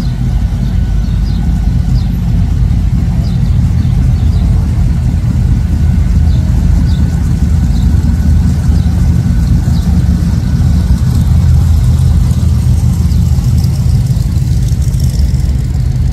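Engines of classic cars running at low revs as they roll slowly past, a deep steady drone with no let-up.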